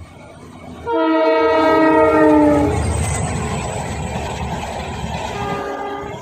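Indian Railways train horn: one loud blast of about two seconds whose pitch sags slightly, then a second, shorter and quieter blast near the end. Under both runs the low rumble of a moving train.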